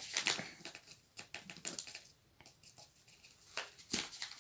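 Soft, irregular scraping and clicking of a spoon and container being handled as cornstarch is scooped out, with one sharper click near the end.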